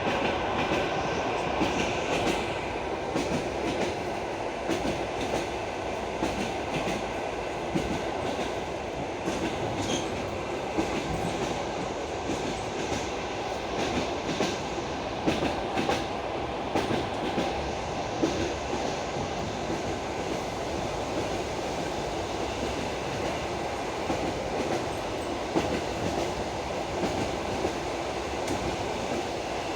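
Passenger train wheels clattering over rail joints at running speed, heard from aboard the moving carriage: a steady rumble with irregular clicks and knocks.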